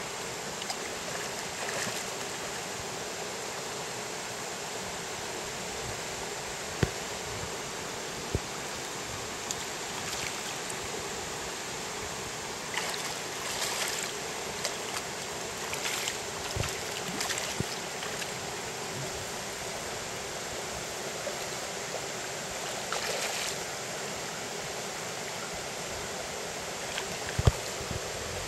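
Steady rush of stream water flowing, with a few short hissing bursts and several sharp clicks, the loudest near the end.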